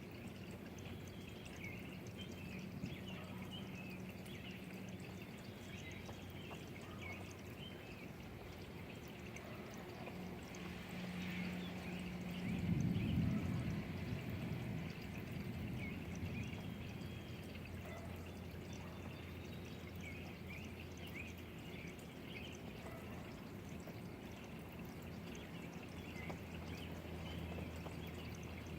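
Steady rain pouring and dripping, with scattered high chirps. About twelve seconds in, a low rumble swells and fades over a few seconds.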